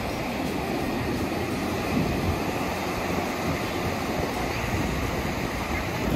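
Sea surf breaking and washing steadily on the beach, with wind rumbling on the microphone.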